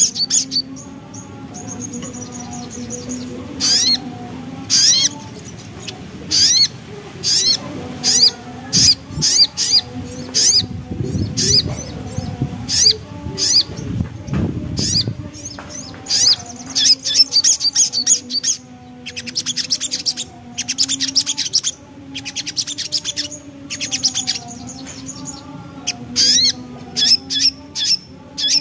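Sunbird (sogon) singing in full voice: rapid, high-pitched twittering phrases repeated in quick bursts, over a steady low hum.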